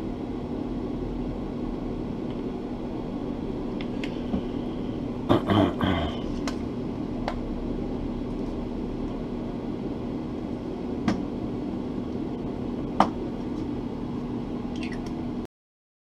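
Steady low motor hum of an airbrush setup, with a few light clicks and knocks as the airbrush and small paint bottles are handled, a short cluster of them about five to six seconds in. The sound cuts off abruptly near the end.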